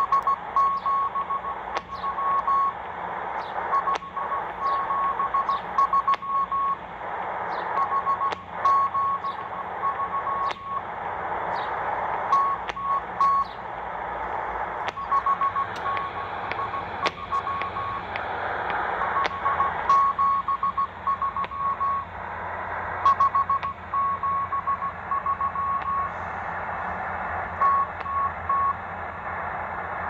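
M12 number station sending Morse code, received in upper sideband on a portable shortwave receiver: a single mid-pitched tone keyed in groups of dots and dashes with short pauses between groups. Underneath runs a steady hiss of shortwave static with frequent sharp crackles.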